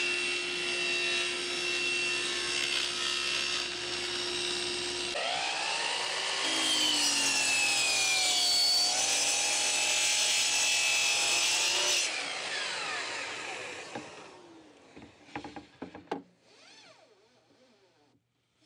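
A table saw rips a sheet of plywood with a steady motor tone. About five seconds in, a Festool Kapex sliding miter saw takes over, its motor pitch rising and dipping as it cuts plywood. Near twelve seconds it is switched off and winds down falling, followed by a few light knocks as the cut piece is handled.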